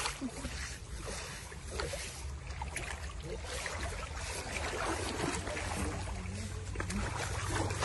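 Shallow river water splashing and sloshing as a bathing elephant lying in it is scrubbed by hand, over a steady low rumble.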